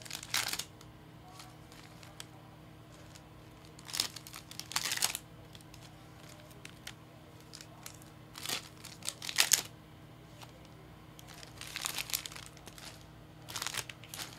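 Foil trading card pack wrappers crinkling and tearing as they are handled and opened, in about six short bursts a few seconds apart.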